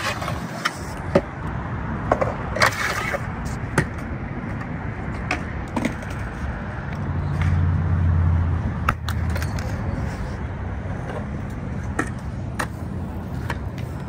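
Wheels rolling on concrete with sharp clacks and knocks from skate or scooter tricks on rails, set against a steady traffic hum. A louder low hum swells about seven seconds in and fades a little later.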